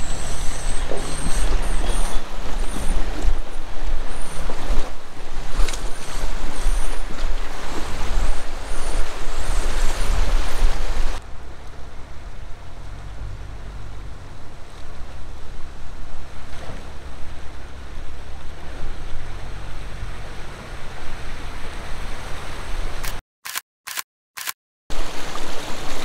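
Jeep Wrangler driving through creek and trail water: rushing water and splashing from the tyres over the engine running, with wind on the microphone. After a cut about 11 s in, the sound is quieter, with the engine's steady tone over the water. Near the end the sound drops out briefly three times before the loud splashing returns.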